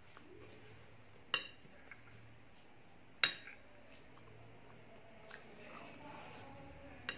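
Metal spoon clinking against a glass plate while scooping food: two sharp clinks that ring briefly, about two seconds apart, then lighter taps later on.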